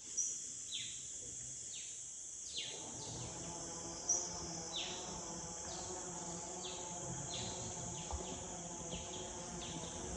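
Forest ambience: a steady high-pitched insect drone, with short falling calls repeating about once a second.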